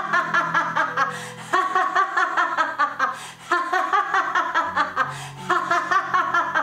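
A woman laughing hard in quick, rhythmic 'ha-ha-ha' bursts with short breaks for breath: the lion laugh of laughter yoga, done with the mouth wide open. Background music with low held notes plays underneath.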